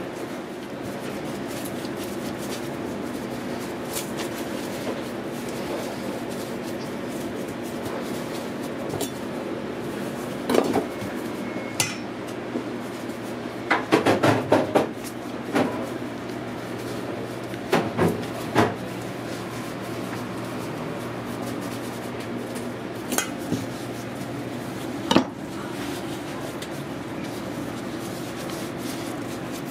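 Kitchen clatter of metal pans, bowls and utensils: scattered knocks and clinks, busiest in the middle, over a steady hum.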